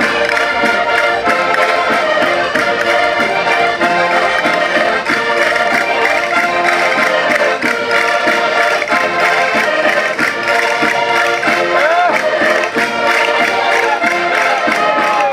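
Several concertinas playing a chula, a traditional northern Portuguese folk-dance tune, with a steady, regular beat.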